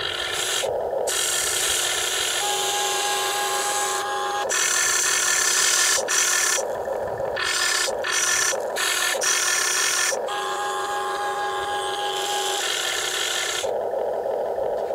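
Huina remote-control wheel excavator's electric gear motors whirring and grinding in short spells that start and stop as the boom, arm and bucket move and the upper body swings. A steady whining tone joins in for about two seconds a few seconds in, and again about ten seconds in.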